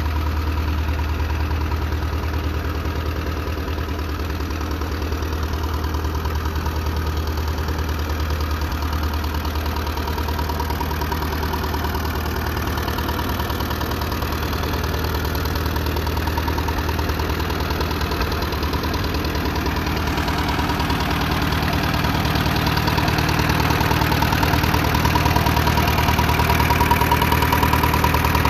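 1940 Allis-Chalmers UC tractor's four-cylinder engine idling steadily, growing somewhat louder near the end.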